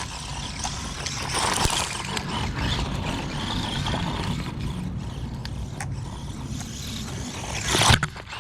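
HBX Ratchet 1/18 scale RC buggy driving on gravel: its 380 electric motor running and its tyres crunching and rattling over the stones. The noise rises to a louder rush about eight seconds in.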